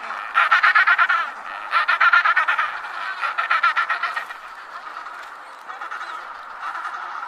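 Banded penguins braying: three loud bursts of rapid pulsing, donkey-like calls in the first four seconds or so, then quieter calling.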